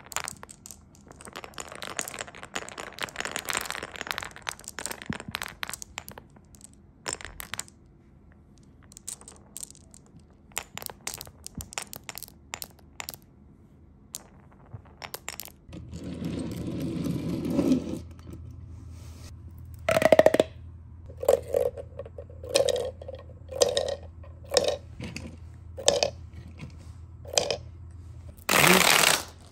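Glass marbles rolling and clicking against each other in the channels of a wooden cube marble run. About halfway through, after a cut, small plastic balls rush through a pink corrugated pop tube and then drop one after another, making about a dozen hollow knocks under a low hum.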